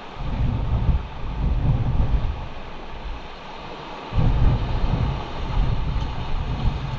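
Wind buffeting the microphone in two long gusts, one starting just after the beginning and one about four seconds in, over the steady wash of surf breaking on rocks.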